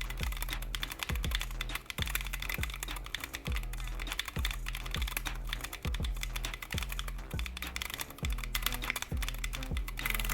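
Fast typing on a magnetic (Hall-effect) switch keyboard in an aluminium case, a dense run of key clacks, over background music with a steady bass beat.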